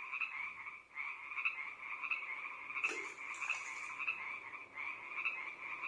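Frogs croaking in a steady, continuous chorus, pulsing about every half second, with a brief rustle about three seconds in.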